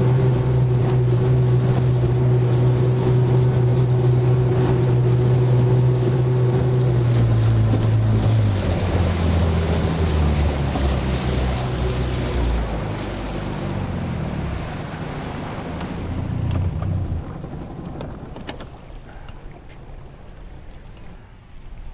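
Boat motor running steadily at speed, then throttling back with its pitch falling from about eight seconds in and dying away around seventeen seconds, after which wind and water noise remain.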